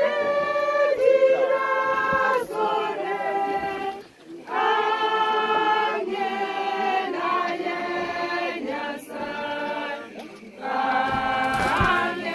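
A group of people singing together in long held phrases, with short breaks about four seconds in and again about ten seconds in.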